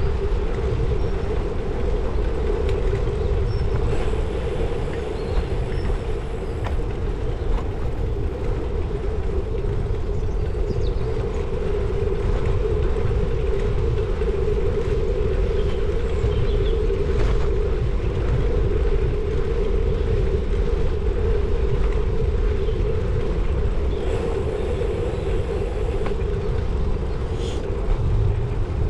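Steady rolling rumble of a bicycle ridden on tarmac, mixed with wind on the microphone of the bike-mounted camera.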